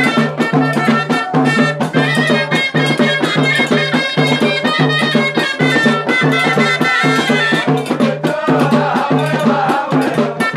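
Moroccan Hit Gharbaoui folk music: a ghaita (reed shawm) playing a held, wavering melody over frame drums, tall clay goblet drums and a double-headed drum beaten in a fast, steady rhythm.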